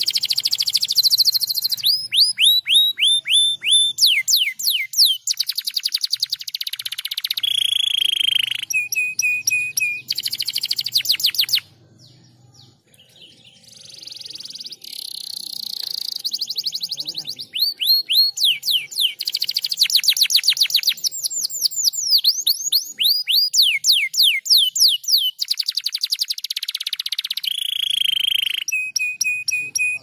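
Domestic canary singing: fast trills of repeated falling whistled notes alternating with held tones, phrase after phrase, with a break of a second or two near the middle.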